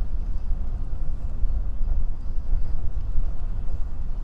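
Wind rumbling and buffeting on the microphone of a moving bicycle: a steady low roar with uneven gusts.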